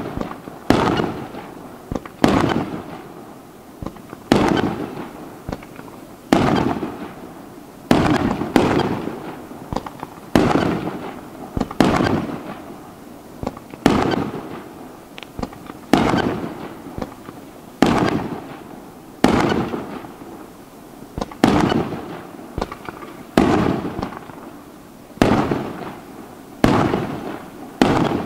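Aerial firework shells bursting in quick succession, a sharp bang about every one to two seconds, each trailing off in a rolling echo.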